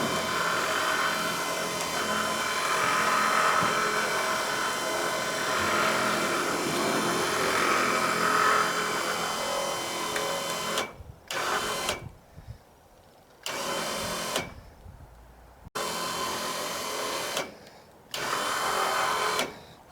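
Electric winch motor pulling a car up onto a trailer. It runs steadily for about ten seconds, then is jogged in four short bursts with quiet pauses between, easing the car into its final position.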